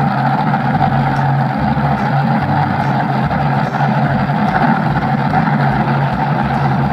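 Steady engine-like drone, like a motor running at idle, without change.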